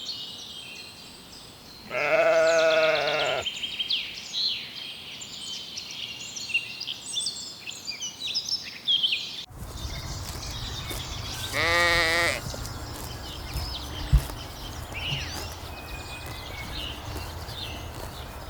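Sheep bleating twice, each a quavering call of about a second, the first about two seconds in and the second about twelve seconds in. High chirping runs through the first half, and a short knock sounds about fourteen seconds in.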